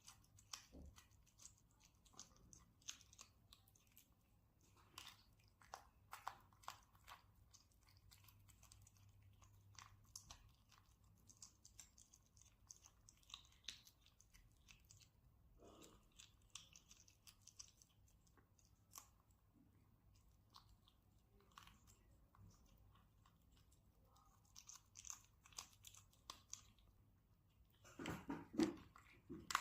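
Kitten chewing and crunching fish: faint, irregular small crunches and clicks, with a louder flurry near the end.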